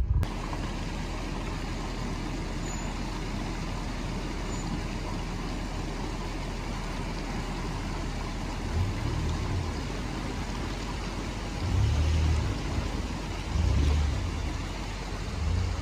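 SUV driving through a shallow, fast-flowing stream: a steady rush of water and tyre noise over the running engine, with several deeper rumbles in the second half.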